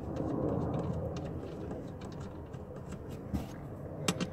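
Low rustle of hands working a bolt into the driver's seat rail of a Ford Taurus, then a few sharp metal clicks near the end as a socket ratchet goes onto the seat-mounting bolt.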